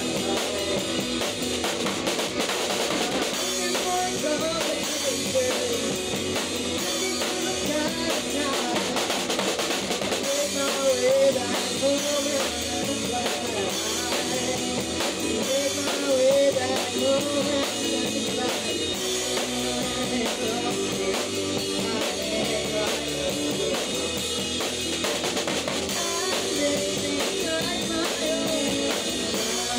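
Live rock band playing, heard from right beside the drum kit: the drummer's kick, snare and cymbals up front with other instruments carrying the melody underneath.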